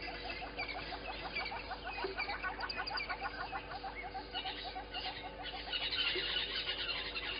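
Birds calling in the bush: a fast, even run of short chirping notes, about six a second, with shriller calls over it that grow louder near the end.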